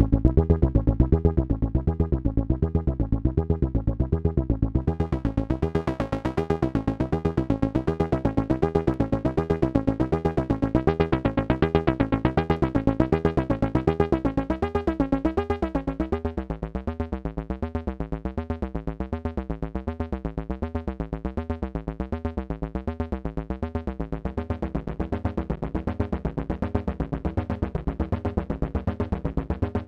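AnalogFX SER-2020 analog synthesizer playing a steady repeating pulse with a full, rich tone. About halfway through, the sound turns darker and thinner as the upper part drops away, and the pulse keeps going.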